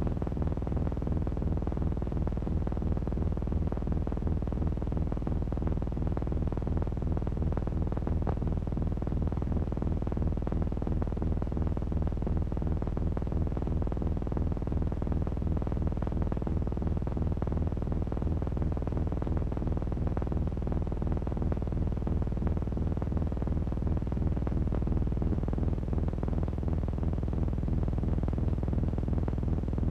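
Low, steady synthesizer drone, a dark soundtrack texture made of many sustained low tones with a fast, even flutter running through it. It holds at an unchanging level throughout.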